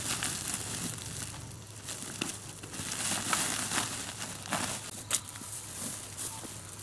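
Irregular rustling and crackling of leaves and twigs, with a sharp crack about five seconds in.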